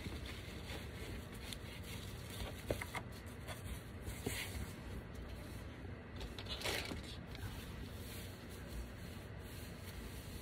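Faint rustling and light clicks of a vinyl LP jacket and its packaging being handled, with a slightly louder rustle about six and a half seconds in.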